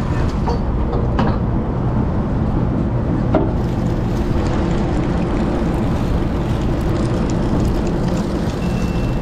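A fishing party boat's engine running steadily, a low drone, with wind and water noise over it. A couple of light clicks, about one and three and a half seconds in.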